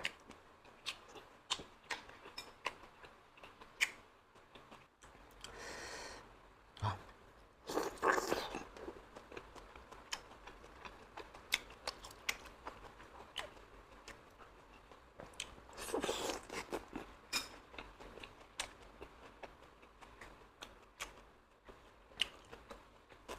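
Close-up wet chewing and mouth smacking while eating pork-stuffed apple snails: many sharp, irregular clicks. Three longer, hissier sounds come about six, eight and sixteen seconds in.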